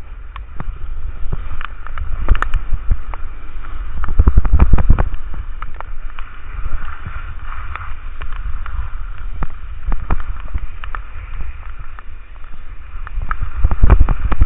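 Wind buffeting a helmet camera's microphone while skiing downhill in heavy rain, with a low rumble, a hiss of skis sliding over wet snow, and frequent sharp ticks of raindrops and chatter on the camera. Near the end the noise grows louder and rougher as the skier runs into the snowy bank.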